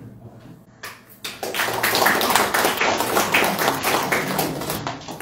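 Audience applauding: a few scattered claps, then a full round of applause from about a second in that eases off near the end.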